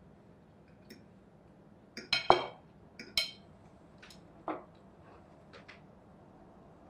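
Cutlery clinking against ceramic dinner plates during a meal: a few sharp, scattered clinks, the loudest cluster about two seconds in.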